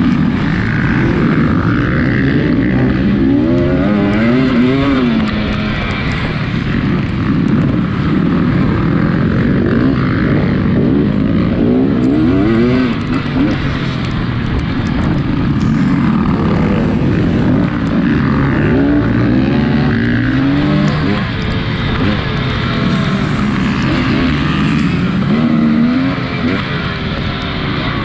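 Off-road dirt bike engine revving hard, its pitch repeatedly climbing and dropping as the throttle opens and closes, over a steady rushing noise.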